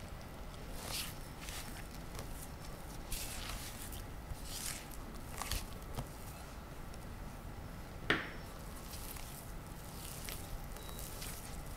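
A spatula stirs flour and liquid in a glass bowl, then hands squish and knead the sticky pizza dough: soft, irregular scrapes and rustles, with one louder scrape against the glass about eight seconds in.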